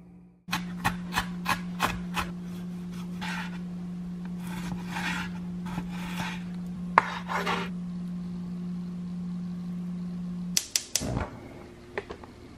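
Knife slicing raw beef on a wooden cutting board: a few sharp taps of the blade on the board, then longer drawn strokes through the meat, over a steady low hum. Near the end the hum stops and a quick cluster of clicks and a thump follows.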